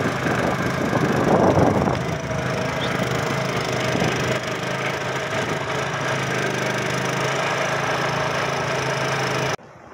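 Small boat's motor running steadily while under way, with a little louder rush of wind or water about a second in; it stops abruptly near the end.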